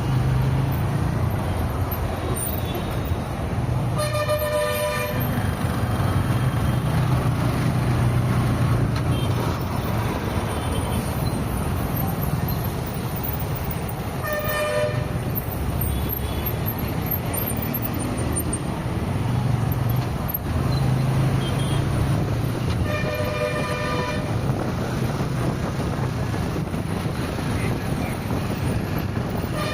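Steady road and engine noise of a car driving in traffic, with a vehicle horn honking three times, each honk about a second long and roughly ten seconds apart.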